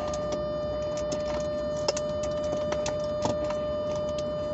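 Small irregular clicks and ticks of plastic trim and connectors being handled and fitted in a car's centre console, over a steady high hum.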